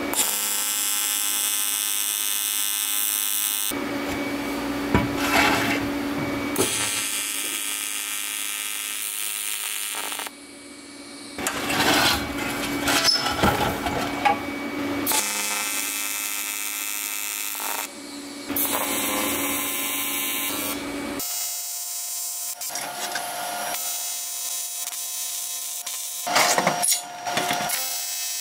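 Stretches of AC TIG welding on aluminium, the arc giving a steady buzzing hum, alternating with a die grinder spinning a sanding drum. The stretches start and stop abruptly several times.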